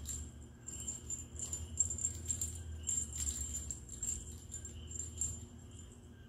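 The bell inside a cat toy jingling in a quick, irregular run of shakes, stopping about a second before the end.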